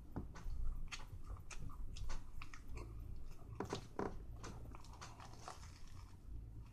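Biting into and chewing a toasted tuna melt sandwich with lettuce, close to the microphone: a run of short, crisp crunching crackles.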